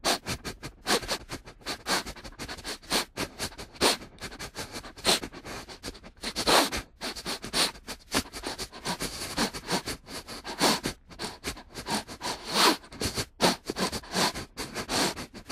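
Sloppy eating sound effect: a dense, irregular run of wet mouth smacks and chewing noises, starting suddenly.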